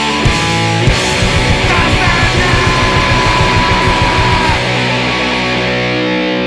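Punk rock band playing: distorted guitars over a fast drum beat, with a long held high note on top. About four and a half seconds in, the drums stop and a distorted guitar chord rings on.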